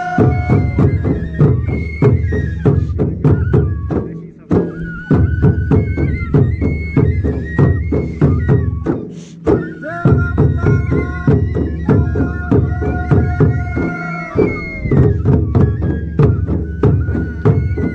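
Folk dance music: drums beating a fast, steady rhythm under a wind instrument playing a stepped melody of long held notes. The music breaks off briefly about four seconds in and again about nine seconds in.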